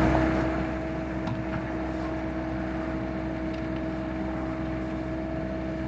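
An engine running steadily: an even low hum with two steady tones over it, unchanging throughout.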